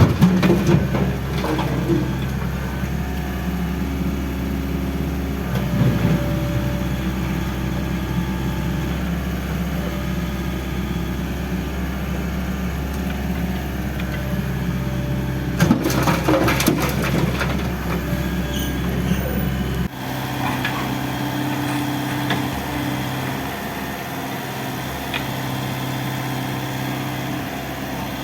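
Excavator's diesel engine running steadily, with clusters of cracking and crashing from the building being broken up near the start and again about halfway through. The deepest part of the engine drone drops away suddenly about two-thirds of the way in.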